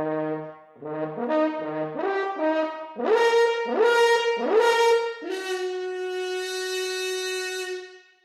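Solo horn playing an unaccompanied phrase. It climbs from low notes through three loud, accented notes to a long held note that fades out near the end.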